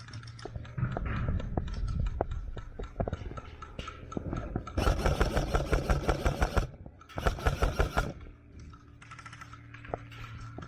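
Airsoft electric gun firing two full-auto bursts of rapid, evenly spaced shots, the first about five seconds in and lasting nearly two seconds, the second shorter and about a second later. Scattered sharp clicks come before them.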